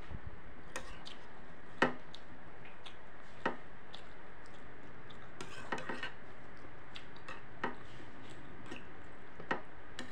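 Metal spoon clinking and scraping against a ceramic soup bowl while eating soto with noodles: scattered sharp clicks, the loudest about two seconds in, over a steady hiss.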